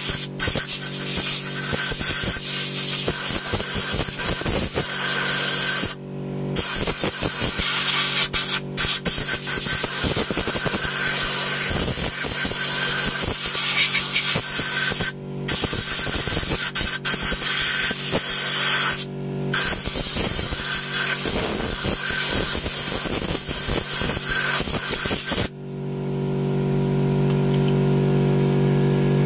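Compressed air hissing from a blow gun into the cleaned piston bores of a twin-piston brake caliper, in long blasts with three short breaks, blowing out cleaner and dirt. The air cuts off near the end, leaving a steady motor hum that runs beneath throughout.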